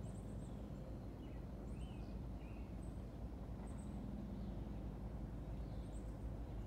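Birds giving short, scattered chirps over a faint, steady low background rumble of outdoor ambience.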